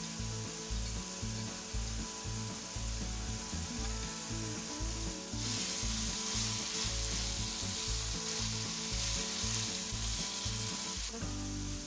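Minced meat and freshly added green onions and ginger sizzling in hot oil in a wok while a slotted spatula stirs them. The sizzle grows louder about halfway through.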